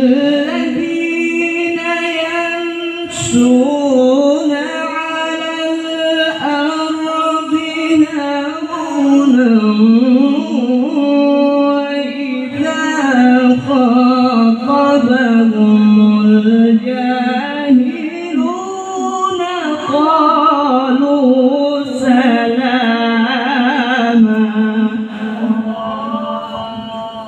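A male qari reciting the Quran in the melodic tilawah style, with long held notes and wavering, ornamented runs. The voice fades out near the end as the phrase closes.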